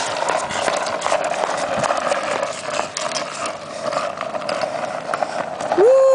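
Skateboard rolling on asphalt: a steady rolling rumble of the wheels, with frequent small clicks and knocks. Just before the end a loud, held pitched cry rises and falls.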